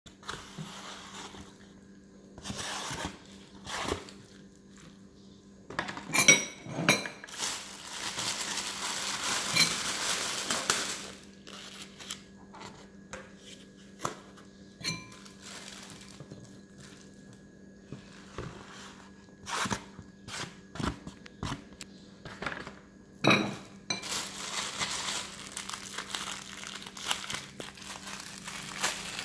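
Metal spoons clinking and scraping against ceramic bowls in scattered knocks, with two longer stretches of plastic bag crinkling as food is served out.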